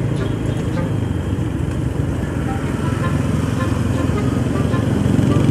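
Motorcycle engine running steadily while riding, with wind and road noise as heard from the rider's seat, among light street traffic.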